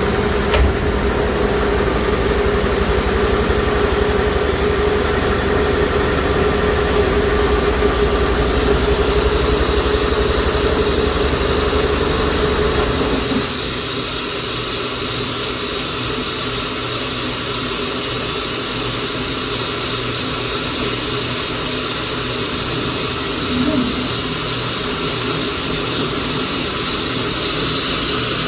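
Bridgeport TC3G CNC vertical machining center running with a steady whine and low hum. About halfway through, the whine and hum drop away, leaving a quieter, steady machine noise.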